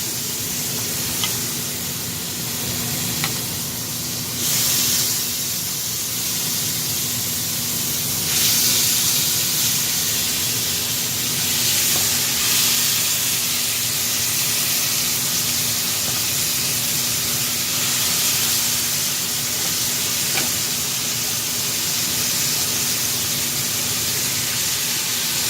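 Marinated chicken pieces sizzling as they fry in a pan, a steady hiss that grows louder a few seconds in and again later. A steady low hum runs underneath, with a few light clicks.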